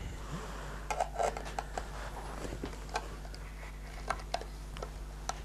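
Scattered light clicks and knocks, about seven at irregular moments, from a scoped rifle being handled and raised into a shooting position, over a steady low hum.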